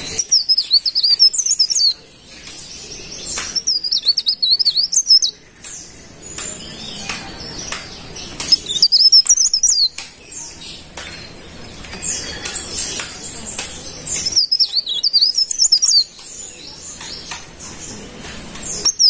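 Cikrak daun leaf warbler singing: four quick phrases of rapid, jumping high-pitched chirps, each lasting about two seconds, with pauses of a few seconds between them.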